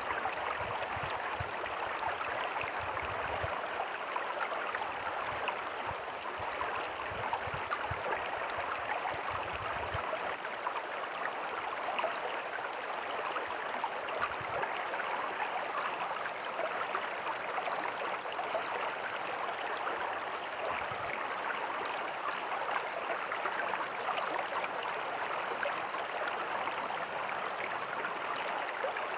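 Small creek and tiny waterfall running over rocks, a steady splashing and gurgling rush of water.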